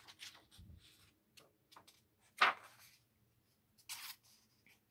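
A hardcover picture book's paper page being turned by hand: faint rustles and small ticks, one sharper slap about two and a half seconds in, and a short swish of paper near the end.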